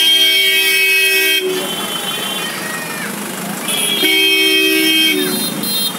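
Vehicle horn sounding two long, steady blasts, each about a second and a half, the second starting a little past the middle, over traffic noise.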